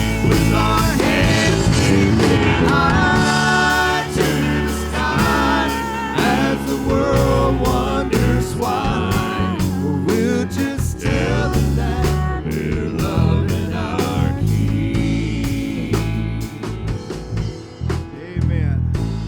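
Live church praise band playing a worship song, with a drum kit keeping a steady beat under sustained instrumental and sung melody lines; the music thins out near the end.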